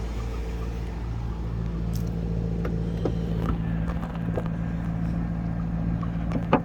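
Maserati Quattroporte Sport GTS's 4.7-litre V8 idling steadily, with a few light clicks and two sharp knocks near the end.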